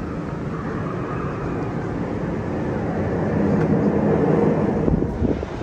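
A vehicle's steady rumble growing louder to a peak about four seconds in, then falling away near the end.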